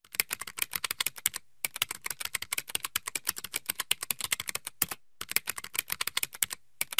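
Rapid typing keystrokes, a quick run of sharp key clicks with a few short pauses, accompanying on-screen text being typed out.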